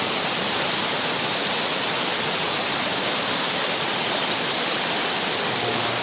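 Flash-flood water rushing steadily, a loud even wash of running water.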